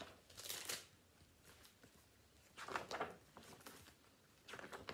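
Pages of a hardcover picture book being opened and turned by hand: three short rustles, about half a second in, around the three-second mark and near the end.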